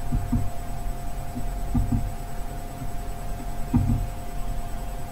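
Steady electrical hum and low rumble of background noise, with a few soft, low thumps.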